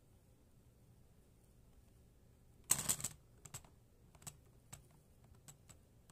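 Beyblade Burst top losing spin in a plastic stadium. After a near-quiet stretch it clatters briefly, then taps the floor in scattered light clicks as it wobbles toward a stop.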